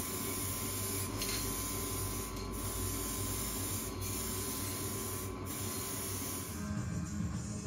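Aerosol spray can hissing steadily as it sprays, with a few brief dips; the hiss stops about a second before the end.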